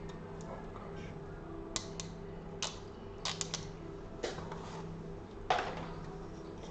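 Scattered light clicks and rustles of small objects being handled on a workbench, about half a dozen, the loudest about five and a half seconds in, over a steady low hum.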